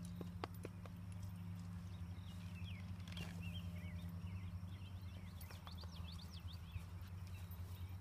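Small birds chirping in many quick rising-and-falling notes over a steady low hum, with a couple of sharp knocks about half a second in from a horse standing with its saddle and tack.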